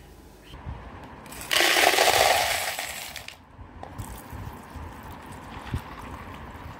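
Dried black chickpeas clattering loudly into a plastic bowl for about two seconds, then a thinner stream of water poured onto them to wash and soak them.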